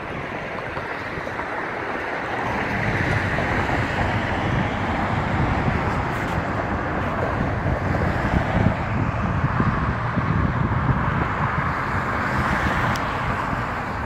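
Wind buffeting the microphone, a gusty low rumble over a steady background noise.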